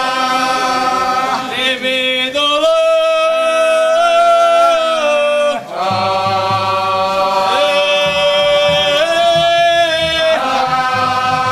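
A group of men singing an unaccompanied chant in long held notes that step up and down in pitch, with a brief pause for breath about halfway through.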